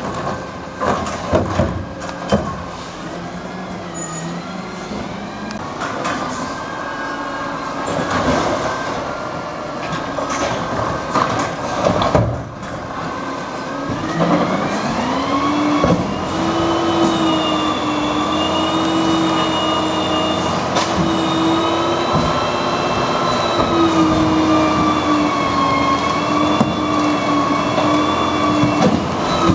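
Peterbilt 320 garbage truck with a Wayne Curbtender automated side-loader working a recycling route: clanking and banging as the arm lifts and dumps a cart in the first seconds. About halfway through the engine and hydraulics rev up in a rising whine that then holds as a loud, steady, slightly wavering whine while the truck works the next carts.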